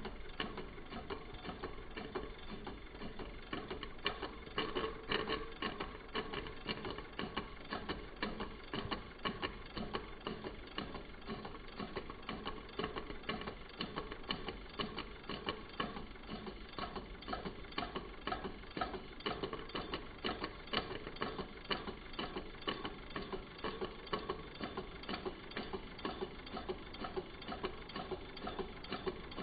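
Wilesco D305 model steam fire engine's small steam engine running, slowed down in slow motion, its exhaust chuffing and mechanism ticking in a fast steady rhythm. The exhaust shows the engine is still warming up.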